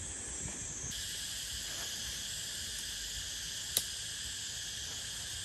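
Steady chorus of insects: a high, continuous buzzing that grows fuller about a second in as more insects join. A single sharp click sounds near four seconds in.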